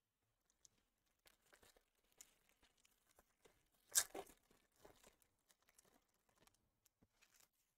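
Faint crinkling and tearing of trading-card pack wrappers as packs are opened and cards handled, with one brief louder tear about four seconds in.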